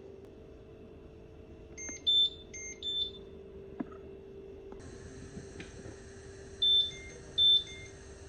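Electronic beeps from an appliance's control panel: two short beeps about a second apart, then two more near the end. Under them runs a steady low hum, and a soft hiss comes in about halfway.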